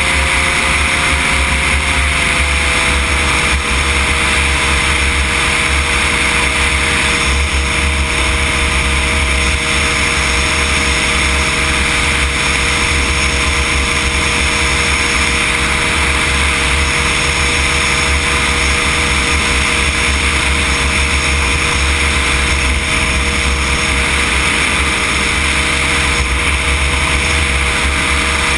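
Cosmos weight-shift microlight trike's engine and pusher propeller running steadily in flight. The engine's pitch dips slightly about two seconds in and then holds.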